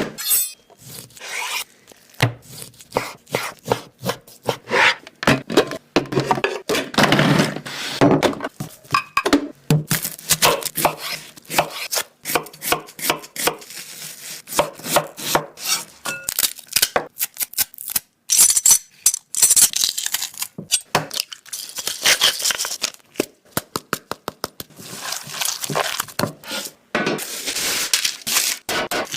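Chopping food, likely chicken: a long run of sharp, irregular knocks of a blade striking a board, some in quick runs, with scraping in between.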